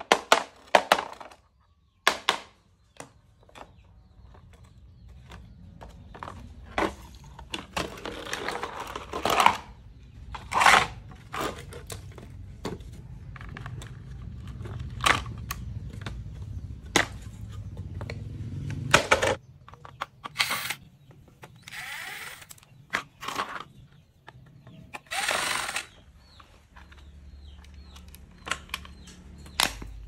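A screwdriver working screws out of an induction cooktop's plastic casing, and the casing and loose plastic parts being handled and pried apart: irregular clicks, taps and knocks with a few short scraping rattles.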